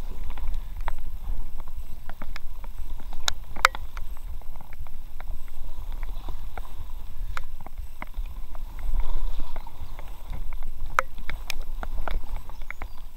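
Paddling an inflatable kayak along a shallow brook: irregular clicks, knocks and small splashes from the paddle, several a second, a few sharper than the rest, over a low rumble.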